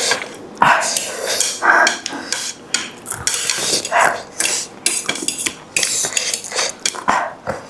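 Utensils clinking and scraping against a bowl as noodles are stirred, in a run of short irregular clicks.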